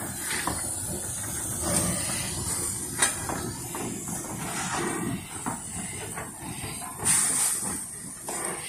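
NGG16 Garratt steam locomotive hissing steam as it moves slowly past, with a low rumble underneath. The hiss swells briefly several times, most strongly about seven seconds in.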